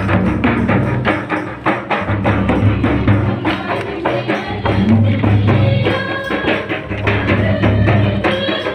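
Processional drumming: large double-headed drums beaten with sticks, keeping a fast, even beat with a jingling metallic shimmer over it, and a few held melodic tones about halfway through.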